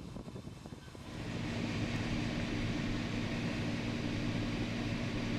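Engine of large farm harvest machinery running with a steady hum. It grows louder about a second in and then holds steady.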